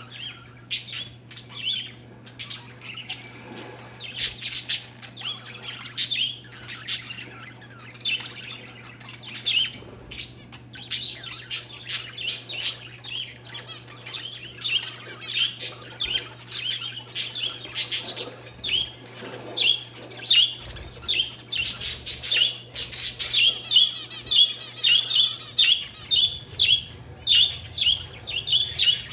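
Pet parakeets and zebra finches chirping and squawking together in a steady stream of short, high calls, crowding into a quick run of chirps in the last few seconds. A faint steady low hum lies underneath.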